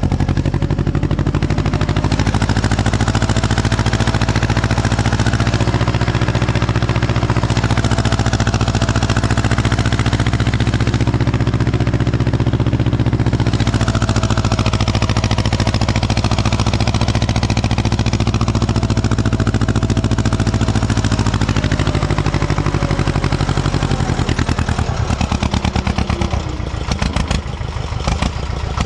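Ursus C-330M tractor's two-cylinder diesel engine running steadily under ploughing load. About 24 seconds in its note drops to a slower, choppier beat as the tractor reaches the end of the furrow.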